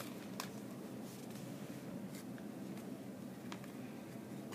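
Quiet handling of trading cards: a few faint clicks over low room tone.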